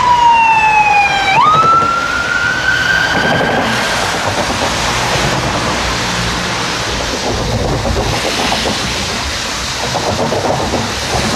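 Siren of an unmarked Škoda Superb escort car wailing: a slow fall in pitch, then a jump up and a rise, cutting off about three and a half seconds in. City traffic noise on a wet street follows.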